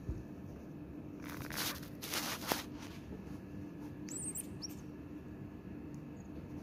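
A few short, high-pitched chirps about four seconds in, over a faint steady hum, with brief rustling a second or two earlier.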